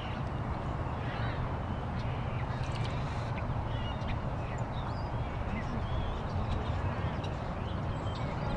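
Outdoor ambience: a steady low background rumble with many short bird chirps scattered throughout.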